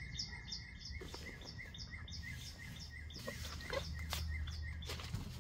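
A bird calling outside, a fast run of short repeated chirps, about three a second, that dies away about halfway through. Then rustling and a few soft knocks as someone moves about.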